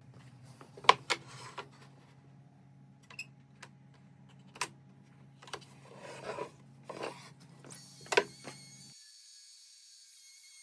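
Scattered sharp knocks and clicks, about ten in all and loudest about a second in and again near eight seconds, over a low steady hum that cuts off suddenly about nine seconds in. Faint music comes in near the end.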